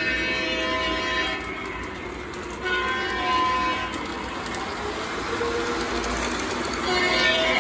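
O gauge model diesel locomotive's onboard sound system sounding its horn in three blasts: one ending about a second in, one about three seconds in, and one starting near the end. Underneath runs the steady rumble and clatter of the train rolling on three-rail track.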